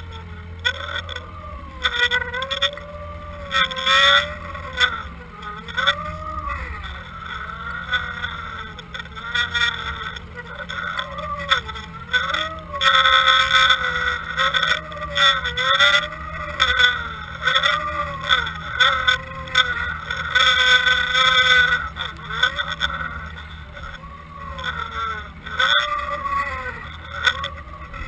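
Boat motor heard underwater through a towed camera's housing: a whine that rises and falls in pitch about once a second over a steady low hum, with rushing water and occasional knocks of the housing.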